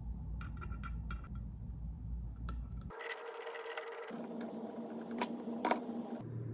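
Small metal-on-metal clicks and scrapes as a steel hex nut is set into a hole in steel square tubing and a bolt is threaded into it and snugged with a socket. A few sharper metallic clicks come a little after the middle.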